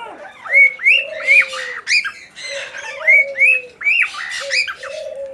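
Several aviary birds calling over one another: a run of short, arched squawking chirps, about three a second, with drawn-out low dove coos underneath.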